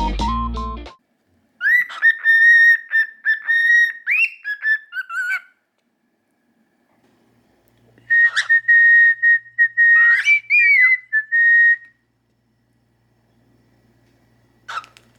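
Cockatiel whistling a tune in two phrases of clear, mostly steady high notes with short breaks and brief slides in pitch, a pause of a few seconds between them.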